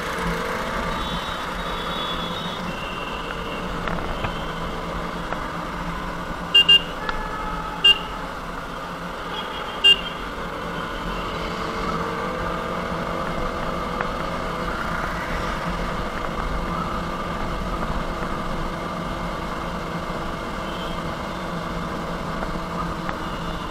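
KTM motorcycle running steadily through city traffic, its engine and road noise continuous. A vehicle horn toots four times in quick short blasts, a double toot about six and a half seconds in, then single toots about a second and three seconds later.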